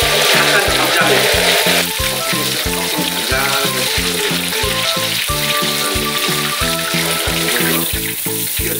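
Battered shrimp deep-frying in hot oil in a wok, a dense sizzle that is strongest in the first couple of seconds and then eases. Background music with a steady beat plays underneath.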